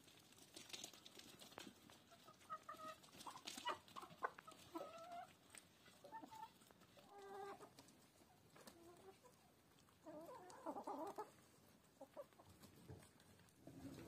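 Domestic chickens clucking softly while feeding, in a series of short calls with a denser cluster about ten seconds in. A few sharp clicks come around four seconds in.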